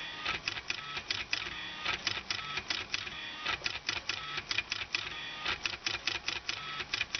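Small stepper motors in CD-drive laser sled assemblies driving a homemade pen plotter's X and Y axes, stepping in quick buzzing, clicking bursts, a few per second in an uneven rhythm, as the pen is moved across the drawing.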